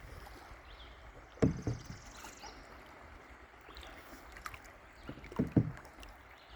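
River water running steadily, with two pairs of low knocks, one about a second and a half in and one near the end, and faint high bird chirps.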